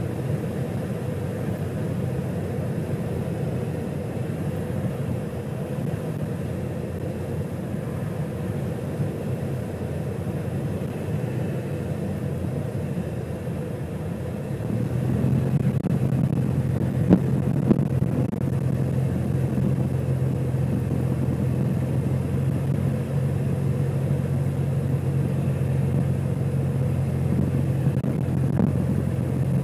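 Kitfox light aircraft's engine and propeller droning at low power, heard from inside the cockpit during the landing. About halfway through the sound grows louder and a steady low hum comes in, with a single sharp knock a couple of seconds later as the plane comes down onto the runway and rolls out.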